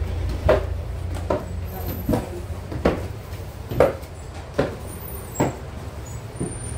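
Footsteps climbing a carpeted wooden staircase: a steady series of dull thuds, about one step every second.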